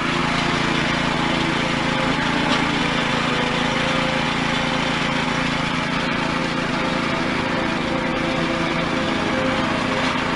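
Small petrol engine running steadily at a constant speed, its belt drive turning.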